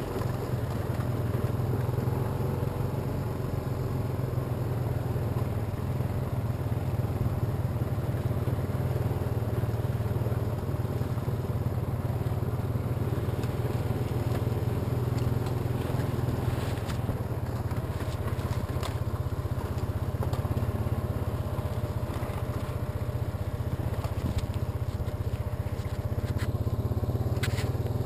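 Honda ATV engine running steadily at trail speed, heard from on board the machine. A few brief scrapes or crackles come in during the second half.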